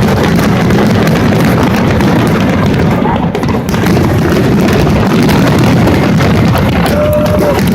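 Fireworks finale: a dense, continuous barrage of booms and crackling, with a brief steady tone near the end.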